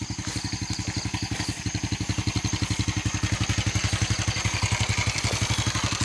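Small motorcycle engine idling: a steady, even run of low pulses about a dozen a second, growing louder over the first couple of seconds.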